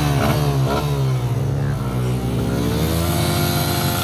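Small Kawasaki dirt bike's engine revving and pulling away on a practice start, its pitch wavering and then climbing and holding high over the last second and a half.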